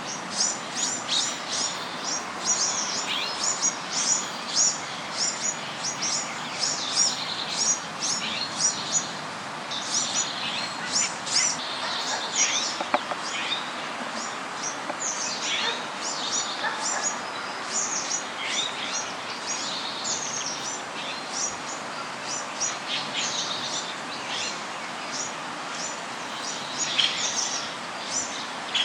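Birds chirping: a rapid, continuous series of short, high-pitched chirps over a steady background hiss.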